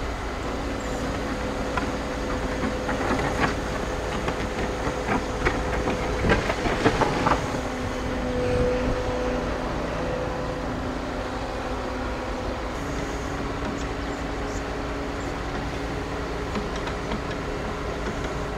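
Construction site machinery running steadily, with a faint engine hum and a cluster of short knocks and clicks between about three and seven seconds in.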